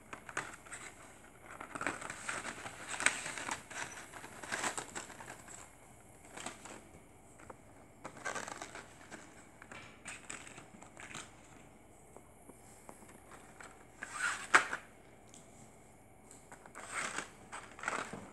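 Plastic packaging and a cardboard box being handled during unboxing: irregular bursts of crinkling and rustling with sharp crackles and quiet gaps between them, the loudest about fourteen seconds in.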